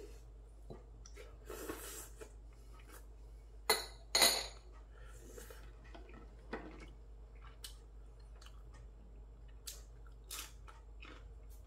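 Eating sounds at a table: chopsticks and tableware clicking against dishes, with two louder clinks about four seconds in, and quiet chewing. Near the end comes a bite into a raw green chili pepper.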